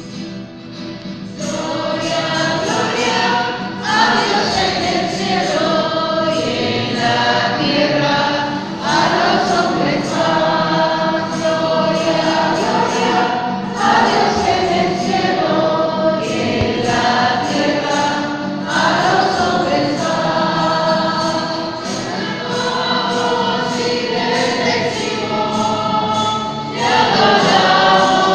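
Music: a choir singing a religious hymn in long sung phrases.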